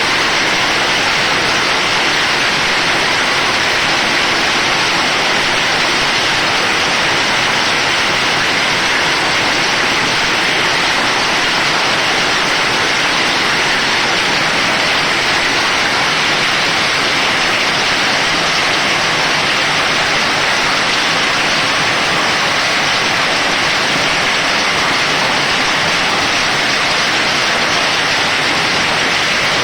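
Heavy rain pouring down steadily, a loud, even hiss with no let-up.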